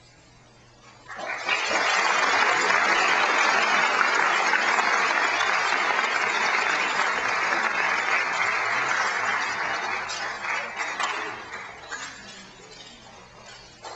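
Audience applause, starting suddenly about a second in after a moment of quiet, holding steady, then thinning to scattered claps and fading near the end.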